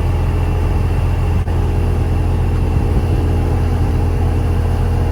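Grain truck's engine running steadily with a deep, even hum, while the truck's box is being hoisted to dump wheat.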